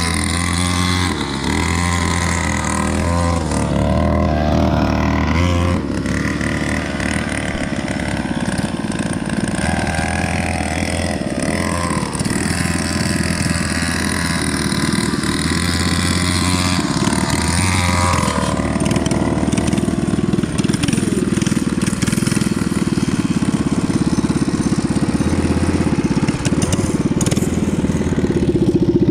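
Small 49cc mini bike engine running and revving up and down, its pitch rising and falling again and again.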